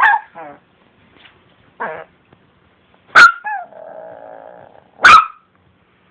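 Long-coat chihuahua barking sharply twice, about two seconds apart, with a quieter drawn-out growl between the barks and a few soft yips before them.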